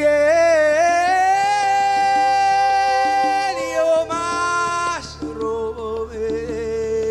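A male worship leader singing long held notes through a microphone over a low, steady band backing: the voice slides up to a high held note about a second in, breaks off near the middle, then carries on with lower held notes.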